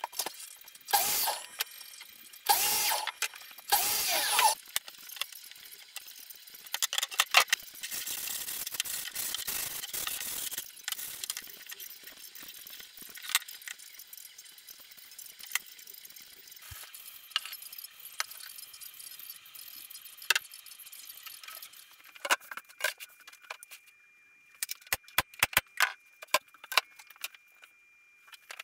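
A run of workshop sounds. A few short, harsh bursts come in the first seconds. Then a stretch of hissing scraping with scattered clicks follows, and near the end a cluster of sharp clicks and taps.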